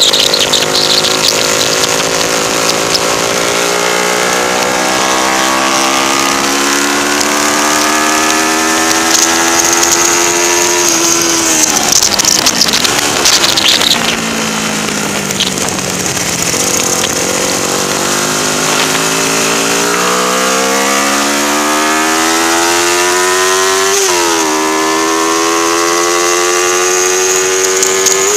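A race-prepared 1977 Honda 125 twin-cylinder motorcycle engine, heard from on board under hard acceleration. Its pitch climbs for several seconds and drops sharply about eleven seconds in, then falls off as the bike slows. It climbs again, broken by quick dips at each upshift, over steady wind hiss.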